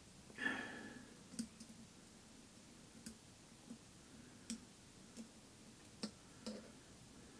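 Faint, scattered small metallic clicks and ticks of circlip pliers and a circlip being worked into place on a ball screw support, with a short scrape about half a second in.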